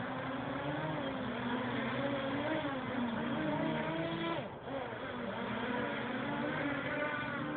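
Homemade quadcopter's four brushless motors spinning 8-inch propellers, a buzz made of several overlapping tones that waver up and down in pitch as the throttle changes. The sound dips briefly about four and a half seconds in, then picks up again.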